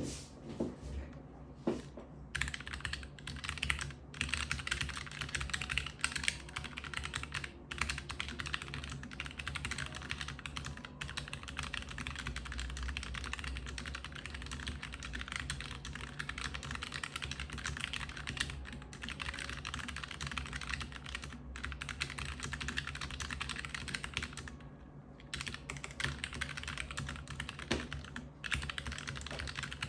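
Keychron K3 Retro low-profile mechanical keyboard with red linear switches being typed on: a few scattered keystrokes, then fast, continuous typing from about two seconds in, broken by a few brief pauses.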